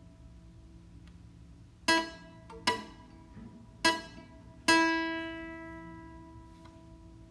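Plucked string instrument sounding single notes, all on the same pitch: four plucks about a second apart, starting about two seconds in, the last left ringing and slowly fading.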